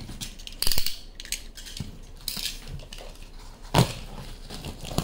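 Packaging of a large parcel being cut and pulled open by hand: a string of short crackles and rustles, the loudest under a second in and again near four seconds in.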